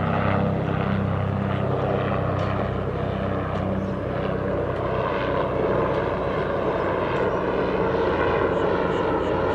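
A steady engine drone: a low hum is strongest for the first few seconds, then fades while a higher, buzzier tone with many overtones grows.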